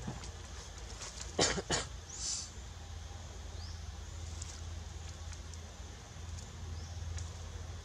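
Outdoor forest ambience: a steady low hum with a few short rising chirps, broken about a second and a half in by two short, sharp sounds close together, then a brief hiss.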